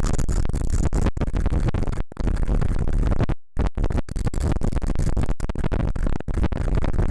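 Bench grinder wheel grinding the steel jaw of a century-old pair of limb clippers to sharpen it: a loud, steady grinding noise that cuts out briefly a couple of times.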